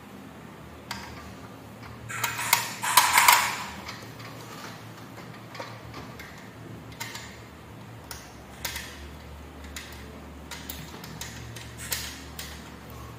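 Stainless steel slats of a folding telescopic fence clicking and clattering as they are handled, with a louder metallic rattle about two to three seconds in, then scattered light clicks.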